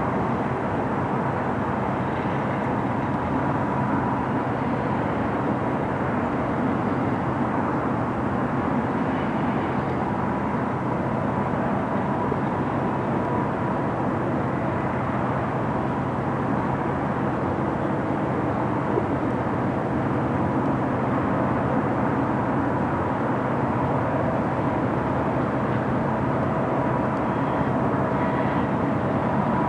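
Double-stack intermodal container train's well cars rolling past, a steady rumble of steel wheels on rail with a faint steady high whine.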